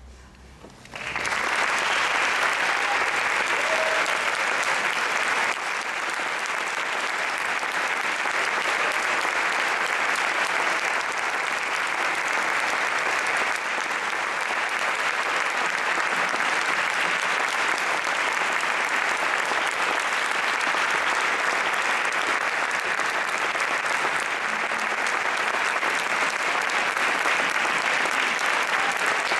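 Audience applauding, breaking out about a second in and carrying on steadily.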